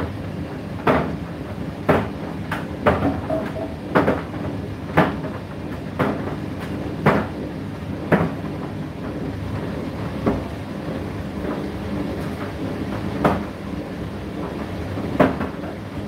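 Indesit IDC8T3 8 kg condenser tumble dryer running mid-cycle: a steady hum from the motor and fan, with uneven knocks about once a second as the drum turns the load.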